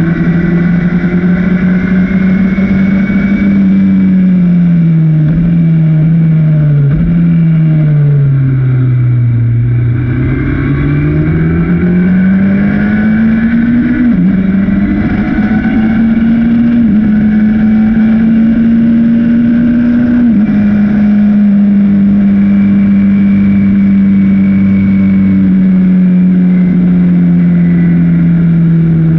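The engine of a 1965 Bobsy SR-3 sports racer at racing speed, heard from its open cockpit. Over the first ten seconds the revs fall in steps as it downshifts and slows. It then pulls back up through the gears with three upshifts and holds steady high revs near the end.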